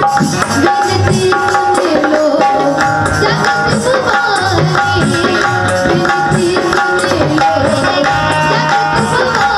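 Instrumental interlude of a Bundelkhandi devotional song: tabla playing a steady rhythm under a melody of held notes.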